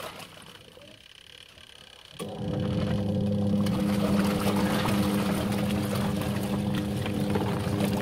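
Fujidenzo twin-tub washing machine's wash motor starting up a little over two seconds in, once the wash timer has been turned, then running with a steady hum while it churns the wash water.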